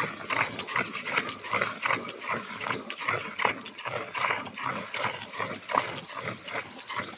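Milk squirting by hand into a steel bucket, in short rhythmic jets about three a second as the two hands alternate on the cow's teats.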